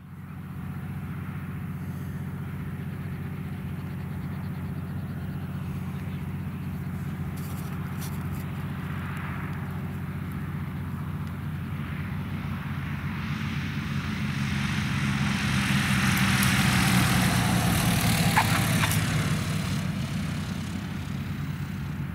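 Cessna 182P Skylane's six-cylinder Continental O-470 piston engine and propeller on landing: a steady drone that swells as the aircraft passes close over the runway, loudest about three quarters of the way in, then fades as it rolls away.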